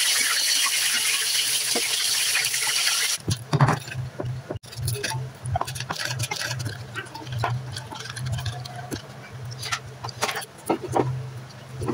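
A loud, steady hiss of noise that cuts off suddenly about three seconds in. After it come scattered clinks and scrapes of a metal spoon on ceramic plates as chicken and sauce are served onto rice, over a low steady hum.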